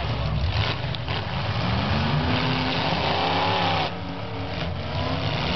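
Demolition derby cars' engines running and revving hard in a tangle of cars. One engine climbs in pitch and holds a high rev with a rushing noise over it, then drops off suddenly about four seconds in.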